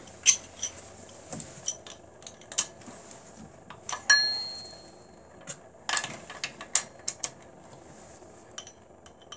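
Steel hand tools clinking and tapping on an engine's cylinder head as the head bolts are loosened and lifted out with a socket. There are scattered metallic clicks and knocks, a quick cluster of them about six seconds in, and about four seconds in one clink rings on for about a second.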